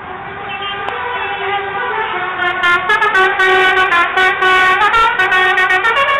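A loud horn sounding a run of notes that step up and down in pitch like a tune, growing louder over the first couple of seconds and then sounding loudly without a break.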